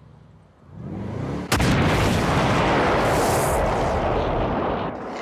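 A brief rising engine note, then a caravan explosion about a second and a half in: a sudden loud bang followed by a long blast that dies down near the end.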